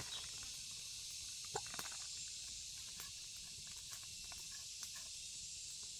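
Quiet outdoor background: a steady high-pitched hiss with a few faint light clicks, the clearest about a second and a half in.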